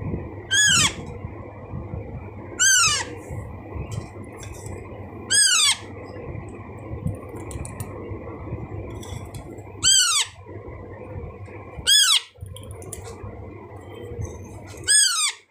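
Alexandrine parakeet chick calling six times, each call a short, loud squawk that falls in pitch, a few seconds apart: the begging calls of a baby parrot being hand-fed.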